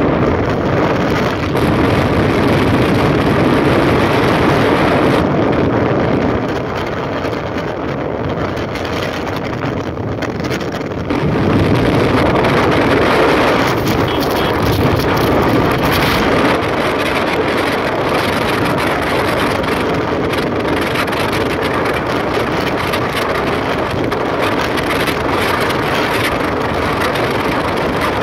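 Steady road and wind noise from a car travelling at speed on a highway, with wind rushing against the microphone. It drops a little for a few seconds about a quarter of the way in, then comes back up.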